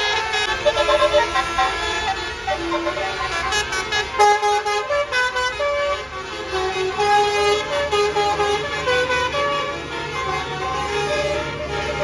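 Basuri 'telolet' multi-tone bus horn playing a fast melody of short stepped notes over the low running of a bus engine; a new horn tune and a different engine rumble take over about six seconds in.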